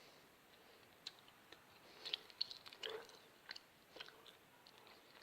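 Faint wet chewing and sticky mouth clicks of someone eating a mouthful of thick homemade slime made from sweets and cornflour, in short scattered smacks that grow more frequent about halfway through.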